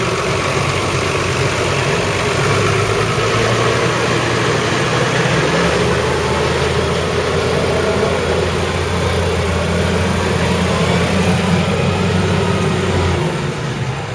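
New Holland T7.235 tractor's 6.7-litre six-cylinder diesel engine running, with a low drone that shifts pitch a couple of times and drops away about a second before the end.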